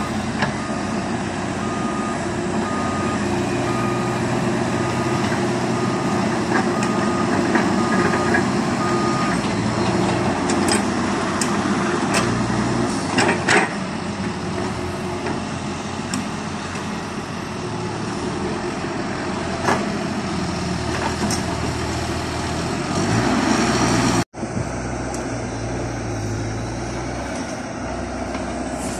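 Diesel engine of a tracked hydraulic excavator working steadily, with a repeating beeping warning alarm for about the first nine seconds and a few sharp knocks and scrapes of the bucket in the middle. The sound cuts out for an instant about three-quarters of the way through, then the machine noise carries on.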